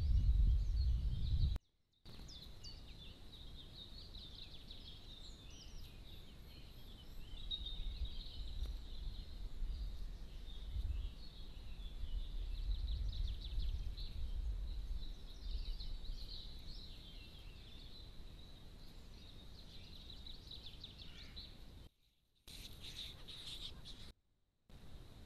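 Small woodland birds singing, many chirps and trills overlapping, with a low rumble rising and falling underneath at times. The sound cuts out briefly about two seconds in and twice near the end.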